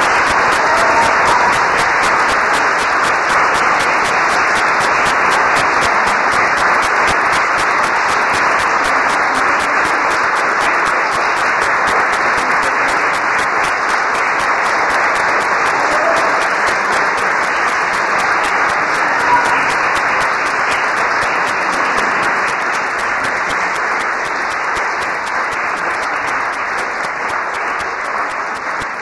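Concert audience applauding steadily after the piece, the clapping thinning slightly toward the end.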